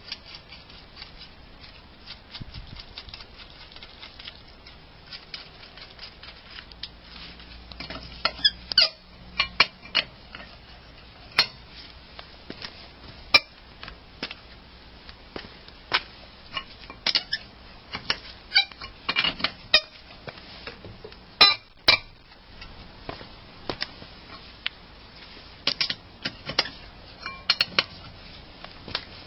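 Scattered metallic clinks, knocks and short squeaks from tools and wheel hardware being handled during a tyre change, with quiet gaps between them.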